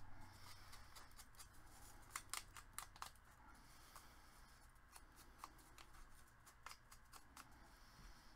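Faint clicks and light taps of craft supplies being handled on a work table, among them a plastic ink pad and a round ink-blending tool. There is a quick cluster about two seconds in and a few more scattered taps around five to seven seconds.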